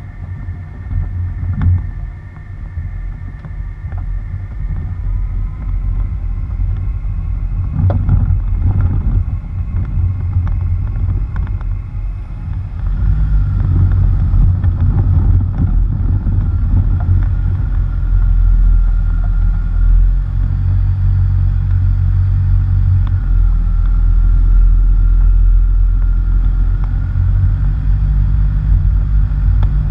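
Tyre and wind rumble on a bumper-mounted action camera as a quiet vehicle drives a gravel and dirt road, with scattered crackles of loose stone about a third of the way in; the rumble grows louder about halfway through as speed picks up. A faint steady whine sits above it.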